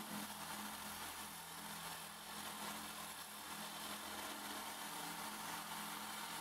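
Electric drill running with a small brush wheel scrubbing old paint and rust off a sheet-steel ammunition box: a steady motor hum under an even scratchy hiss.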